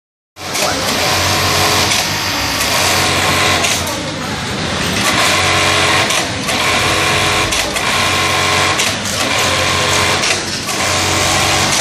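A room full of industrial sewing machines running at once, the nearest a Juki, with an uneven level as machines stitch and pause, and voices underneath.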